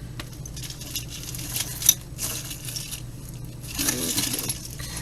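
Costume jewelry being handled and sorted by hand: small metal and bead pieces clinking and rustling against each other, with one sharper click about two seconds in.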